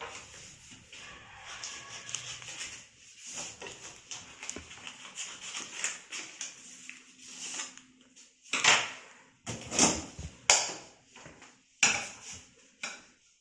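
Sheets of stiff green craft paper rustling as they are handled. In the last few seconds there are about five sharp, loud crackles.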